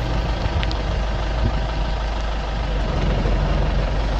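Safari jeep engine idling steadily, a low even running sound with no revving.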